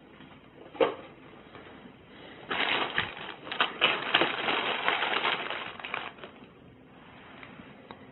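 A single sharp knock about a second in, then about three and a half seconds of crinkling and rustling from bags and papers being handled, dense with small clicks.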